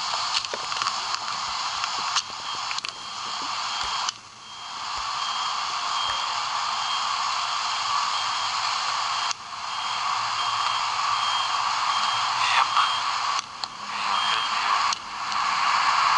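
A steady static-like hiss that cuts out abruptly for a moment four times, with a few light clicks.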